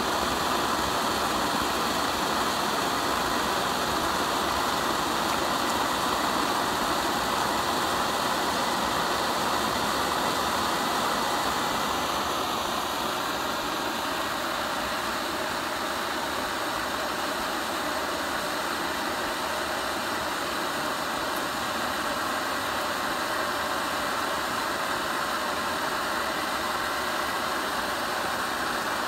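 MSR DragonFly liquid-fuel stove burning white gas, its burner giving a steady hiss. It turns slightly quieter about twelve seconds in.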